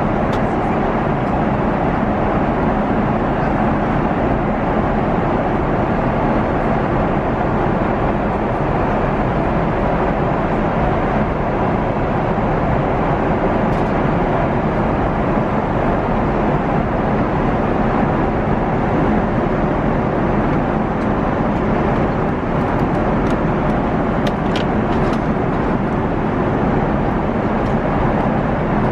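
Steady cabin noise inside a Boeing 777-300ER airliner: an even, unbroken rush of air and engine noise, with a few faint clicks late on.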